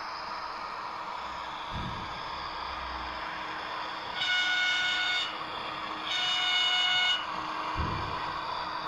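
An ACME H0-scale model of the FS E444 electric locomotive, fitted with a DCC sound decoder, sounds two horn blasts through its small speaker midway through. Each blast lasts about a second, with a short gap between them, over a steady hiss. Two faint low thumps come before and after the blasts.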